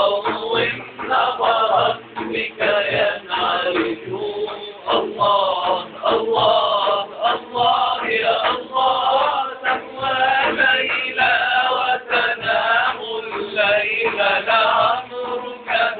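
Men singing an Arabic Islamic nasheed in chant-like unison, with frame drums (daf) beating in time.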